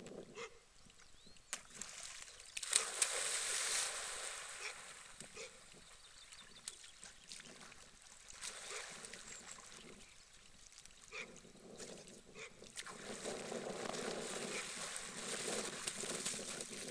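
A dog plunges into a pond with a loud splash about three seconds in, swims quietly out to a ball with small splashes, then splashes and wades back out of the water near the end.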